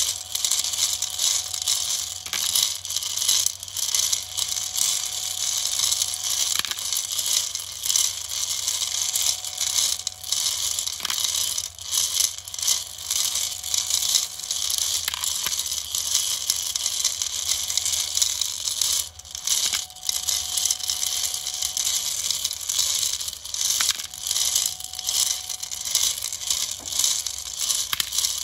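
M3 metal hex nuts tumbling and clattering over each other inside a rotating 3D-printed plastic hopper drum, a dense continuous rattle of small clicks. A faint steady whine from the NEMA 17 stepper motor turning the drum runs beneath it.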